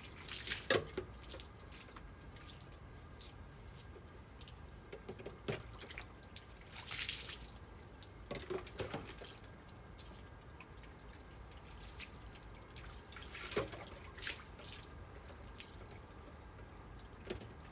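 Water poured from a jug over a wet Labrador's coat, splashing and dripping onto the paving in several short bursts.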